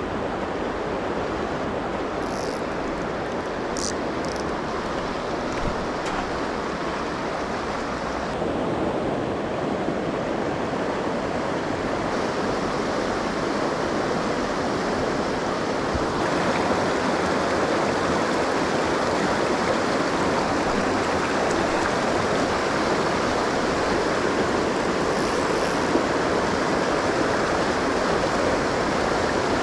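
Shallow mountain river rushing over a rocky, boulder-strewn bed in a steady roar of riffles and small rapids, a little louder from about halfway on. A few brief high chirps come through near the start and again near the end.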